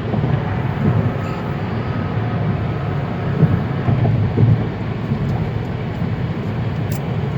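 Road and engine noise of a moving car heard from inside the cabin, a steady low rumble.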